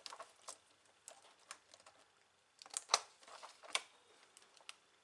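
Plastic clicks and snaps from a Dell Inspiron N5010 laptop keyboard as it is pried up and its locking tabs let go: a scatter of light clicks, with a few louder snaps a little under three seconds in and again nearly a second later.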